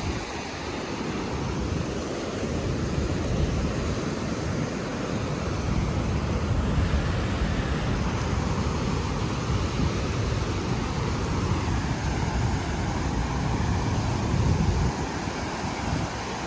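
Flooded river running in a steady, rushing torrent of muddy water over rocks, with wind buffeting the microphone.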